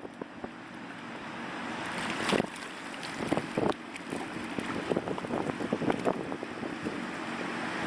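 Wind noise on the microphone, with scattered splashes and squelches as hands dig in shallow water and wet mud.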